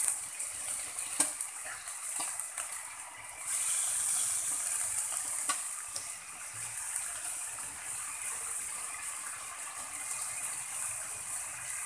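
Chunks of tuna sizzling as they sauté in hot oil in a wok, a steady frying hiss. A couple of sharp clicks come from the metal spatula against the pan in the first half.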